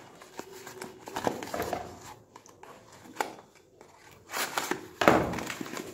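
Plastic packaging rustling and crinkling as it is handled, with a few small clicks and knocks; the rustling gets louder about four seconds in.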